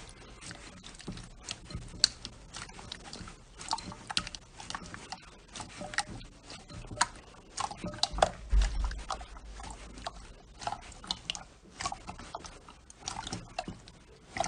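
Slime being squeezed and worked by hand, giving a rapid, irregular run of small wet clicks and pops.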